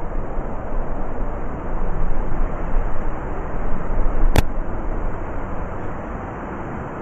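Blizzard wind blowing in gusts, a rushing noise that swells through the middle and eases near the end, with a single sharp click about four seconds in.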